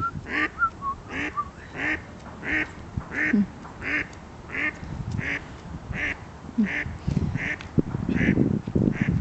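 A duck quacking in a steady series, about one and a half quacks a second, with a small bird's whistled notes in the first second or so and a low rumble near the end.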